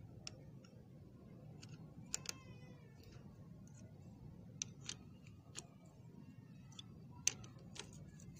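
Faint, irregular metallic clicks and clinks of an L-shaped socket wrench working the oil drain bolt under a Honda CB150F engine as it is loosened, with a short squeak just after two seconds in.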